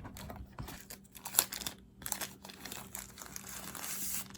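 Packaging crinkling and tearing as a newly bought camera is unboxed, with scattered small clicks and a sharper click about a second and a half in.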